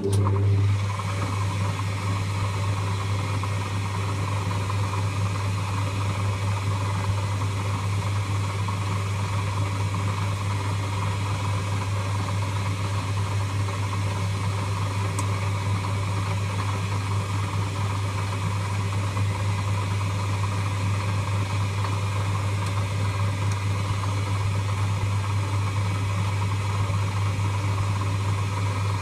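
Lathe running steadily with a strong, even hum over machine noise, cutting in suddenly at the start.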